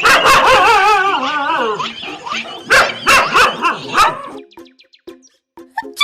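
A dog gives a long howl that wavers in pitch, then barks about four times. Near the end, light background music with short plucked notes takes over.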